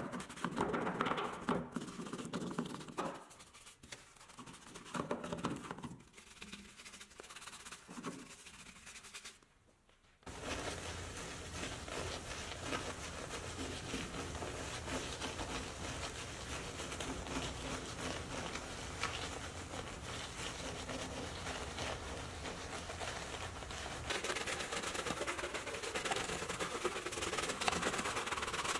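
Gloved fingers rubbing wash foam around a truck's fuel filler door in short, uneven bouts, then, from about ten seconds in, a soft detailing brush scrubbing steadily through thick wash foam on a chrome emblem and a textured bumper step: a wet, scratchy swishing.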